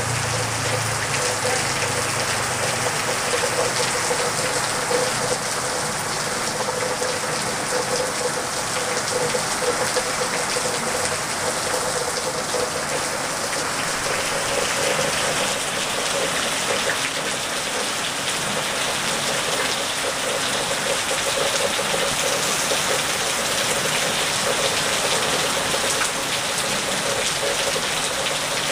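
Steady rain falling, an even unbroken hiss of many drops.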